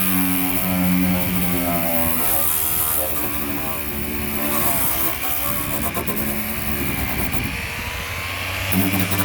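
Power sander running against a car's quarter panel, stripping the paint down for undercoat; its motor pitch wavers up and down as it is pressed into and eased off the metal.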